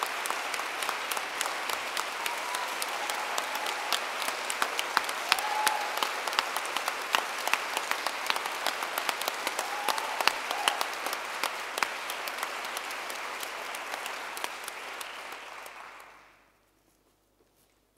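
Audience applause, many hands clapping steadily, which dies away quickly near the end.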